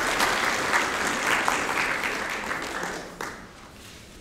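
Audience applauding: a dense patter of many hands clapping that thins out and dies away about three seconds in, with a last lone clap.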